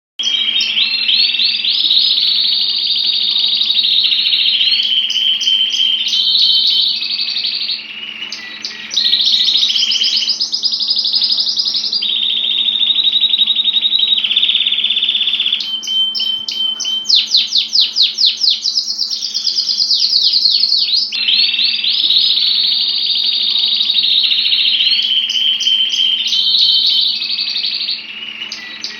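Domestic canary singing a long, loud song of high rolling trills that shift to a new phrase every second or two, including a fast run of sharply repeated notes about two-thirds of the way through. The song pauses briefly about eight seconds in and again near the end.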